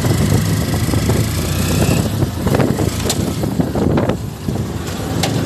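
A motorcycle-and-sidecar tricycle's engine running as it rides along. The sidecar rattles, with a few sharp clicks around the middle and one near the end.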